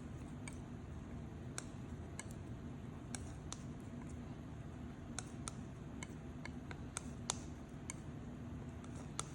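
Light, irregular clicks and taps of a tool against a palette as oil paint is mixed, about two a second, over a steady low background hum.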